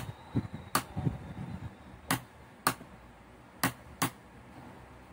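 Plastic dashboard switches on a children's electric ride-on toy car being pressed, about six sharp clicks at uneven intervals, with no motor running in response: the car does not start, which the repairer puts down to a flat battery.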